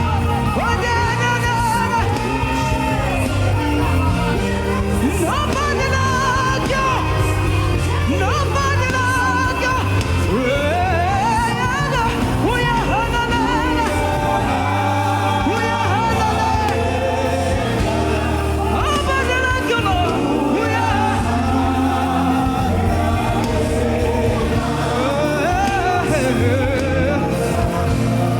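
Live gospel worship music: singing voices with sliding, wavering melodic runs over a band with steady bass notes.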